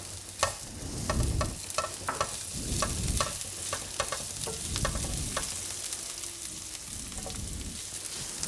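Chopped garlic and onion sizzling in oil in a frying pan as they sauté, with a spatula stirring them and scraping and tapping against the pan in repeated short clicks.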